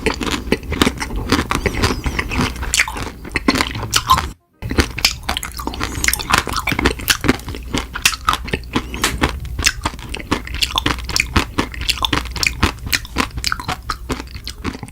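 Close-miked mouth crunching and chewing of hard, stone-shaped food, a dense run of sharp crunches. It cuts out for a moment about four and a half seconds in, then the crunching carries on.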